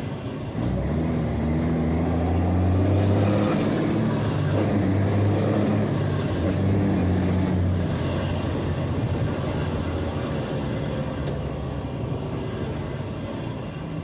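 Mercedes-Benz 1634 truck's six-cylinder electronic diesel on a straight-through exhaust, pulling on the road. After a brief dip at the start, the engine note rises over the first few seconds, then runs fairly steady with small changes in pitch. A thin high whine climbs, then slowly falls away through the second half.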